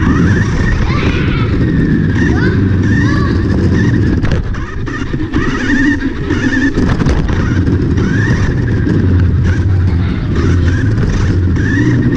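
Small electric motor and gears of a cheap toy RC car, heard up close from a camera mounted on it, whining in repeated rising glides as it speeds up again and again, over a steady rumble of the wheels and chassis rolling across hard floor and carpet.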